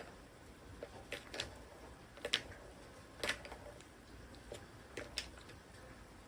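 Light taps and clicks, about eight at uneven spacing over a few seconds, each short and sharp, over faint room hiss.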